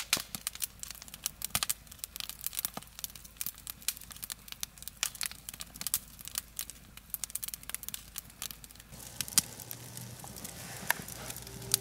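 Wood fire burning in a steel fire pit, crackling with many irregular sharp snaps and pops.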